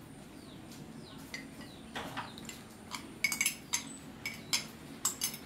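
Metal spoon clinking against a cup and steel mixing bowl as oil is added to cake batter: a few sharp clinks, mostly in the second half.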